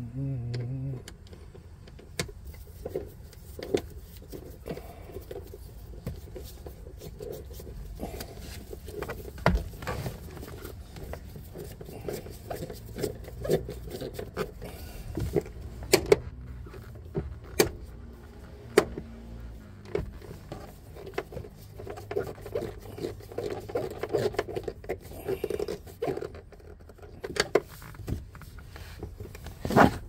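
Irregular clicks, knocks and light metallic rattles of hand work with a 10 mm wrench and bolt on an SUV door fitting, a handful of sharper knocks standing out among them.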